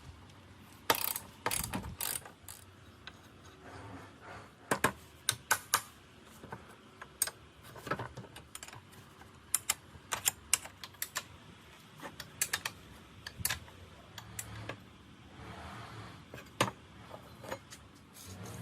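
Hand tools working on metal motorcycle parts: irregular sharp clicks, clinks and knocks, some in quick clusters.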